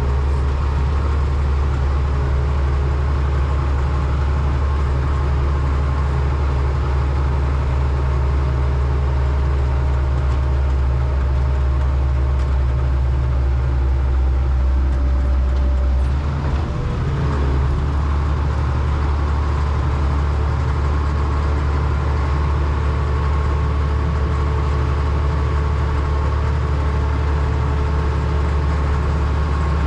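Motor grader's diesel engine running steadily under load, heard from the operator's seat, with a brief change in engine note about seventeen seconds in.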